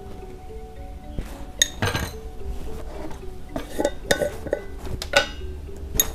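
A string of sharp metallic clinks and knocks on a stainless steel mixing bowl, some of them ringing briefly, over background music with a simple stepped melody.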